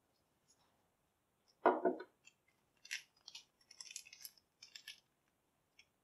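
Small tools and parts handled on a workbench: a dull knock of something set down about a second and a half in, then a run of light clicks and rustles, like a small plastic bag of screws and metal tools being picked through.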